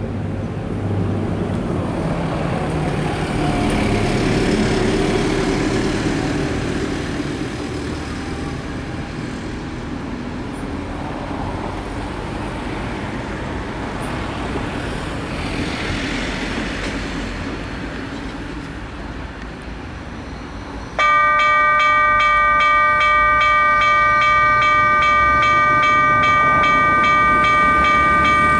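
EMD G12W diesel-electric locomotive's 12-cylinder two-stroke engine working as it pulls a passenger train away from a station, with a steady low rumble. About three-quarters of the way in its air horn starts suddenly: one long, loud chord of several tones held steady.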